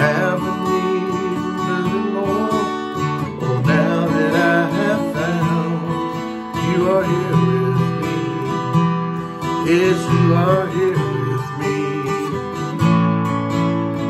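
A man singing a Christian worship song to his own strummed acoustic guitar.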